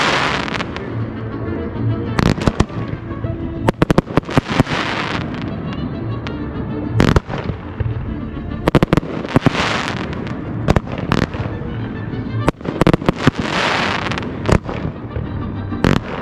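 Display fireworks shells and cakes bursting in quick volleys of sharp reports, with several swells of crackling hiss, over steady background music.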